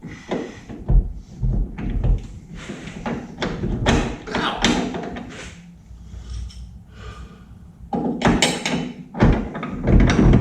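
Irregular thumps and knocks of heavy parts being shifted and fitted during rear axle installation, with a low steady hum for a few seconds in the middle.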